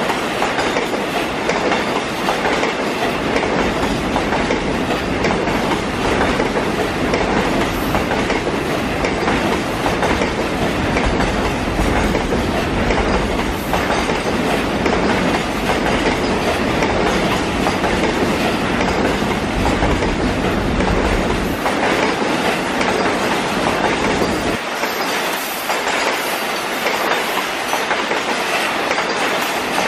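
A car carrier freight train's covered wagons rolling past, their wheels clattering steadily over the rail joints. The deep rumble underneath drops away near the end while the clatter goes on.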